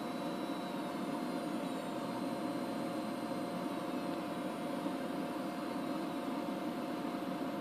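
CNC 6040 router spindle driven by its Nowforever VFD, slowing as the speed potentiometer is turned down from about 167 Hz to about 37 Hz. It gives a steady hum with a faint high whine that slowly falls in pitch.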